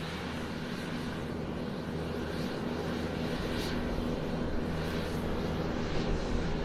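Airplane taxiing: a steady engine drone over a low hum, slowly growing louder.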